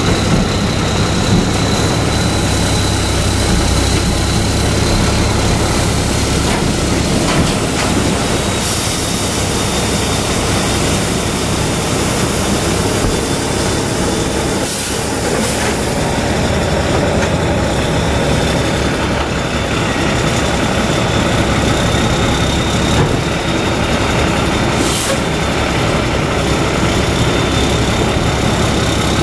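Heavy diesel semi truck engine running steadily at low speed as it tows a house on a multi-axle house-moving trailer, with a thin steady high whine over it.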